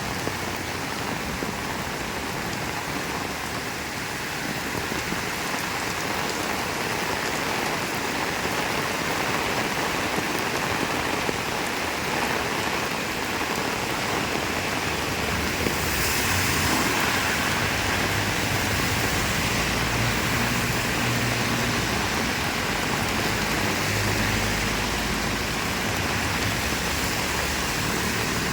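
Heavy rain falling steadily, a dense hiss of drops. Over the second half it grows slightly louder and a low rumble builds underneath.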